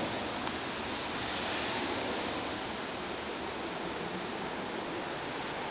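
Steady outdoor hiss with no distinct events.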